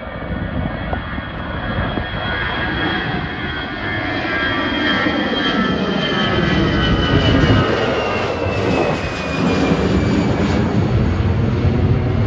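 Twin-engine jet airliner climbing out after take-off and passing overhead: a loud engine rumble that grows louder, with a high whine that slides down in pitch as the aircraft goes by.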